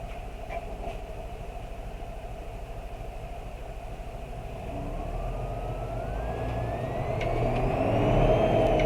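Isuzu Erga bus's 6HK1 diesel engine running steadily, then picking up load and accelerating about four and a half seconds in, growing louder. A thin whine rises in pitch with it and starts to fall just before the end.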